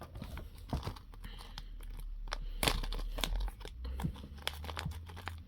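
Packaging being opened and handled: irregular crinkling and tearing with scattered light clicks and crackles.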